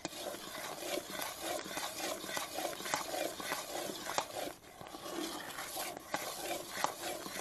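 Metal spatula stirring thick halwa batter in an iron kadai, with continuous wet churning and frequent clicks and scrapes of the spatula against the pan.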